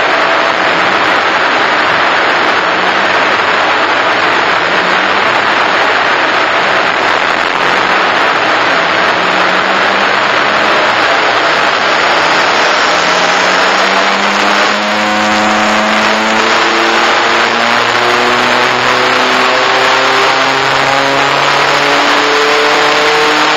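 Ford Focus RS mk1's turbocharged four-cylinder, with a decat manifold and Milltek exhaust, running under load on a roller dyno, its revs climbing slowly and steadily. A steady rush of air from the dyno's cooling fan runs underneath. After a brief dip in level about fifteen seconds in, the climbing engine note stands out more clearly toward the end.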